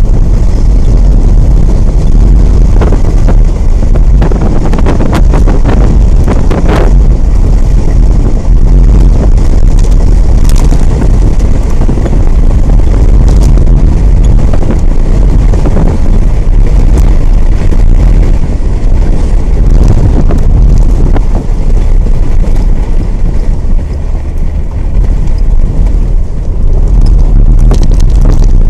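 Strong wind buffeting the microphone over a loud, steady low rumble of a boat under way at sea, with a few short knocks a few seconds in.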